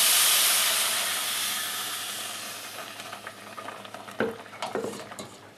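Milk poured into a hot pot of butter-toasted ground hazelnuts and semolina, sizzling loudly at first and dying away over about three seconds. Then a spoon stirs the mixture, with a few scrapes and knocks against the stainless steel pot.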